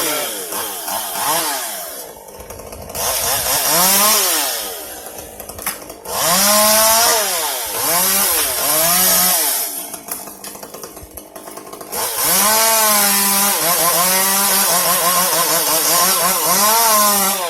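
Chainsaw revving in repeated bursts while cutting up tree branches, its pitch rising and sagging under load, with short drops toward idle between bursts and the longest run of cutting near the end.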